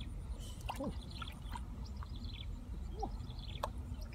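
Hands squelching and sloshing in muddy water at the bottom of a dug pit while groping for eels, with short wet splashes and clicks, over a steady low rumble and faint high chirping.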